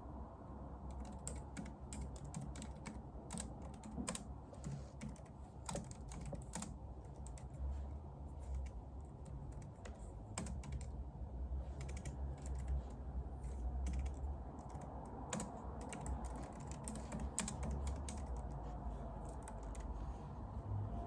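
Typing on a computer keyboard: irregular runs of keystroke clicks that start about a second in, over a low steady hum.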